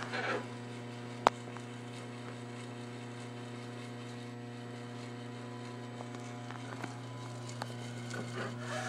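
Steady electrical hum from the powered-up CNC-retrofitted Bridgeport vertical mill and its control, with one sharp click about a second in.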